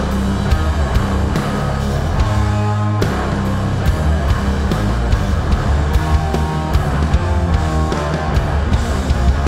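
Sludge/doom metal band playing live: loud distorted electric guitars and bass over drums, with the riff changing about three seconds in.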